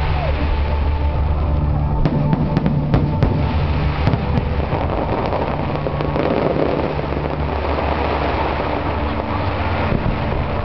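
Aerial fireworks bursting, with a run of sharp crackles about two to four seconds in over a steady low rumble.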